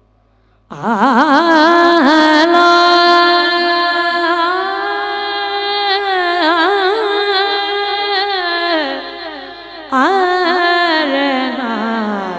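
A boy's solo voice singing a naat into a microphone, without instruments. It comes in suddenly with a long held opening note decorated with wavering ornaments, fades near the end of the phrase, and starts a fresh phrase about ten seconds in.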